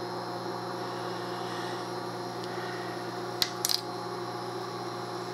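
A metal utensil clinks against a glass mixing bowl about three and a half seconds in, one quick clink and then a quick pair, as it is let go in the bowl. A steady electrical hum runs underneath.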